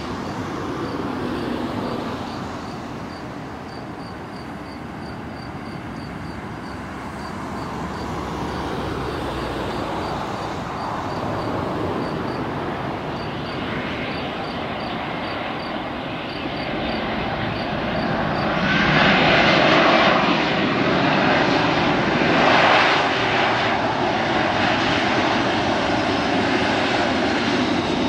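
Airbus A320 airliner landing: steady jet engine noise through the approach and touchdown, which grows louder and harsher about eighteen seconds in as the engines spool up for reverse thrust on the landing roll.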